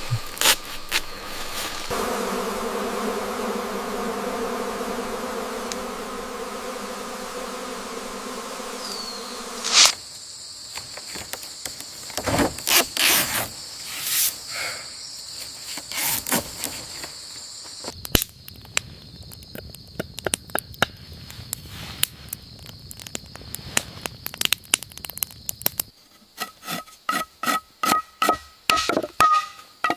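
Forest insects buzzing and chirring, with scattered sharp clicks and knocks; the sound changes abruptly every eight seconds or so. Near the end there is a run of short, repeated high calls.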